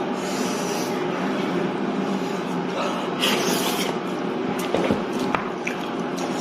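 Close-miked eating sounds: chewing and wet mouth noises with a few sharp clicks, and a short hissing slurp about three seconds in.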